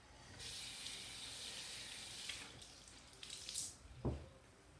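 Water running from a tap while hands are rinsed off, a steady hiss for about three seconds that then stops, followed by a short thump about four seconds in.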